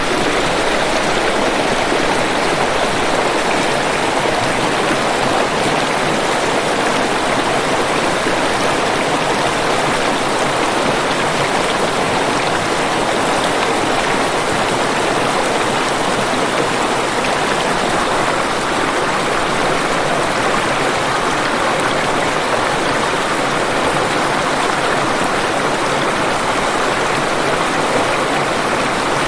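Waterfall water rushing in a steady, unbroken roar of white noise.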